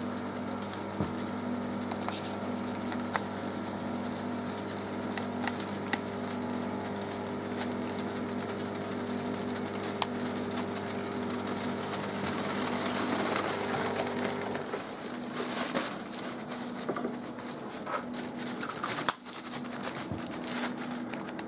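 Storz & Bickel Volcano vaporizer's air pump running with a steady hum and airy hiss as it blows into a plastic oven roasting bag, which rustles as it fills. The pump stops about 15 seconds in, and the plastic bag then crinkles as it is handled.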